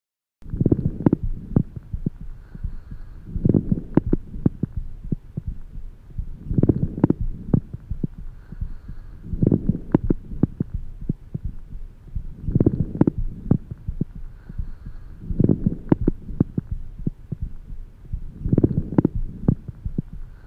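Lung sounds through a stethoscope: breath noise swelling with each inhalation and exhalation, about every three seconds. Each breath is peppered with short, sharp crackles (crepitations).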